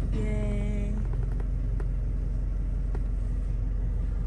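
Steady low rumble of a passenger van running, heard inside its cabin, with a short steady pitched tone during about the first second.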